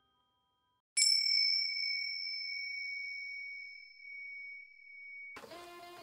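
A single high electronic chime, the ding of a channel logo sting, struck once about a second in and ringing on as a pure steady tone that slowly fades over about four seconds. Near the end, acoustic blues music with guitar begins.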